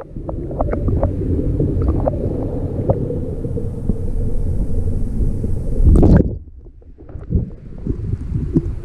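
Underwater rumble of water flowing in a hatchery tank, heard through a submerged action camera's housing, with scattered small clicks and knocks. About six seconds in there is a loud splash as the camera comes out of the water, then quieter open-air noise with wind on the microphone.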